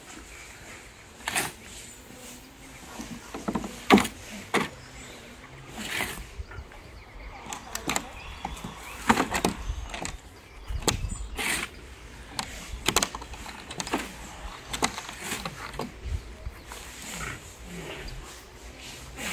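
Spade blade chopping into and scraping through soil, in irregular strokes about every second or two, as earth is shovelled and packed around a plastic pool.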